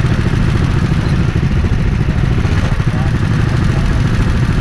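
Go-kart engine idling close up, a steady, rapid low pulsing with no revving, with the engines of the karts queued alongside running too.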